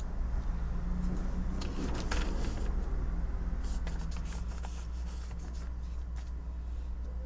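Computer keyboard typing: two short runs of key clicks, about two seconds in and again about four seconds in, over a steady low background rumble.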